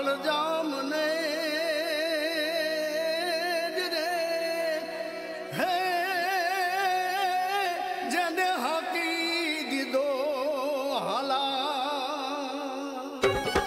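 Music: a solo voice singing long held notes with heavy vibrato, with rhythmic percussion coming in just before the end.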